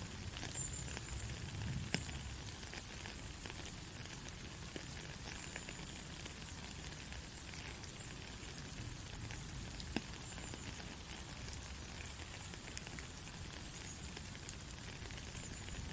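Steady rain: an even hiss with scattered drop taps, two of them sharper about 2 and 10 seconds in, and a few faint, short, high bird chirps.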